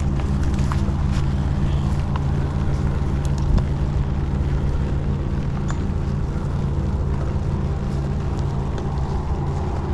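A motor running steadily with a low, even hum, with scattered faint ticks over it.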